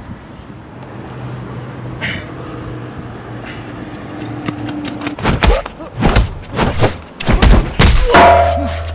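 Staged fight hits: a rapid run of loud thuds and whooshes, about eight in under three seconds, starting about five seconds in, as punches and kicks land on a man who is knocked down.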